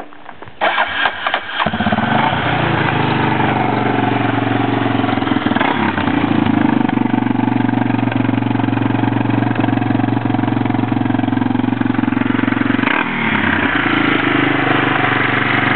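2001 Yamaha Warrior ATV's single-cylinder four-stroke engine being started. It catches about a second and a half in and settles into a steady idle, briefly dipping and changing note near the end.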